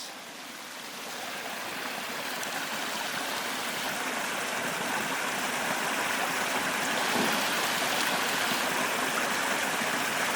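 Spring water running out of a hillside in a steady trickling flow, getting gradually louder over the first several seconds.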